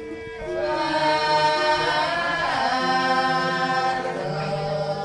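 A group of women singing a Hindu devotional song together from books, in slow, long-held notes. The singing swells louder about half a second in.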